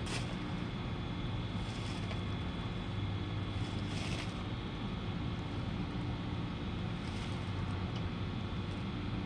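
An engine running steadily, a low hum with even overtones, with a few faint short hissing or scraping noises over it.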